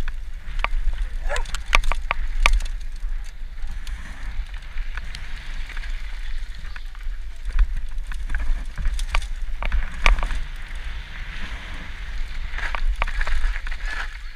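Mountain bike riding down a dirt and gravel trail, heard from a helmet-mounted camera: many sharp rattles and knocks from the bike over bumps, tyre noise on the ground, and a steady low rumble of wind on the microphone.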